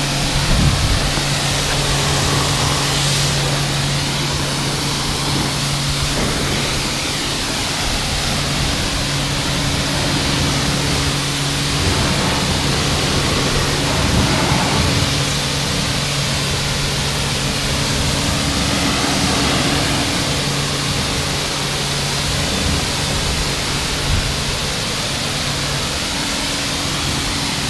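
Kärcher K4 electric pressure washer running, its lance spraying water at a car: a steady loud hiss of spray over the constant hum of the pump motor.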